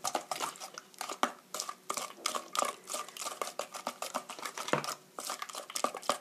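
Wooden spatula beating eggs into a thick grated-apple batter in a stainless steel bowl: quick, irregular scraping and clicking of wood against metal, with a short pause about five seconds in.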